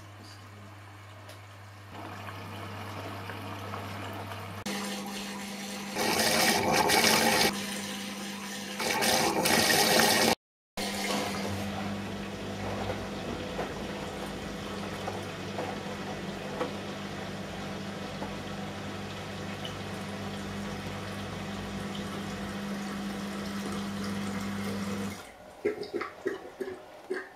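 Hotpoint RD 966J washing machine running its fast wash cycle: water rushes and sloshes in the machine over a steady hum, with two louder gushes of water early on. The hum and water stop shortly before the end, and a few sharp clicks follow.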